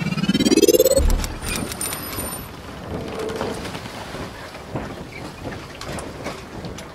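Intro logo sound effect: a rising whoosh that ends in a deep boom about a second in. A brief high shimmering tone follows, then a steady hiss with scattered crackles.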